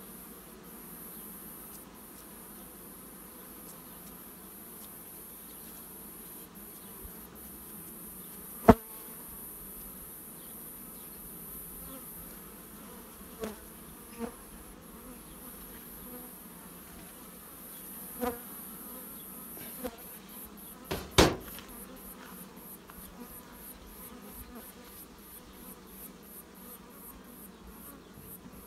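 A honeybee colony, Carpathian honeybees, buzzing steadily around an opened hive. A sharp knock comes about nine seconds in, a few lighter knocks follow, and another loud knock comes around twenty-one seconds in.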